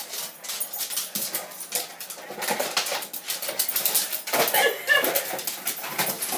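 A dog pawing and biting at a crinkly silver cat toy, making a rapid, irregular crackling rustle. A few short, high dog noises come about four and a half seconds in.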